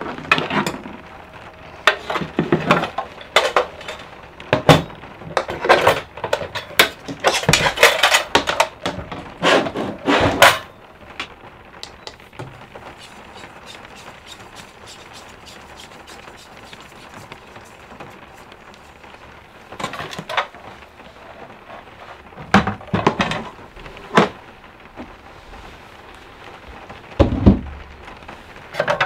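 Metal cooking gear being handled: a kettle, pot lids and a folding camp stove clink and knock as they are picked up, set down and opened, in a busy run of knocks for about ten seconds, then a quiet stretch, then a few more clusters near the end.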